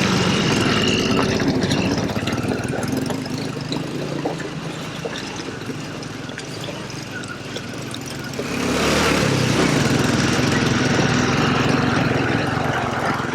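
Hero Honda CD100's small single-cylinder four-stroke engine running steadily under way. It drops back in the middle and picks up again about two-thirds of the way through.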